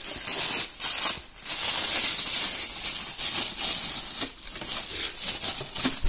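Thin plastic bag crinkling and rustling as it is pulled and unwrapped from around a robot vacuum cleaner: an irregular crackling hiss with a few brief pauses.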